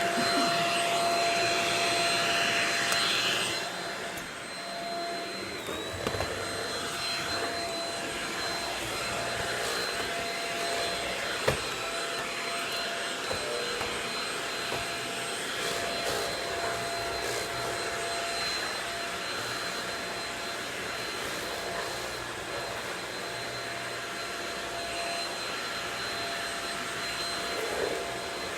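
Shark Rocket vacuum cleaner running, a steady motor whine over the suction noise, louder for the first few seconds. A single sharp knock partway through.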